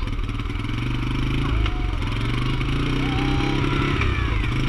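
A small vehicle's engine running steadily as it tows a loaded trailer and begins to pull away.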